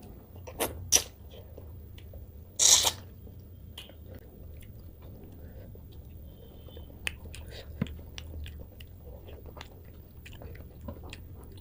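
Close-up mouth sounds of a person eating rice and rohu fish curry by hand: biting and chewing with small wet clicks. Two sharp clicks come within the first second and a louder burst near three seconds in.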